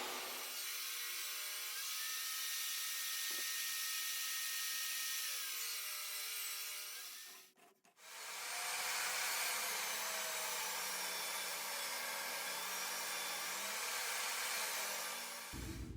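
Table saw cutting plywood: a steady saw hiss with faint tones that slide in pitch as the blade is loaded. It comes in two stretches, broken by a brief silent gap about halfway through.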